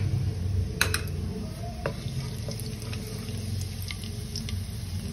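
Cumin seeds sizzling in hot mustard oil in an aluminium pot, with scattered pops and clicks, a few sharper ones about a second in, over a steady low hum. A wooden spatula stirs the seeds against the pot.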